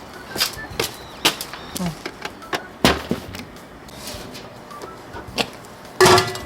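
Irregular sharp clicks and knocks, a few a second at first and then sparser, over a steady hiss, with a louder clatter about six seconds in.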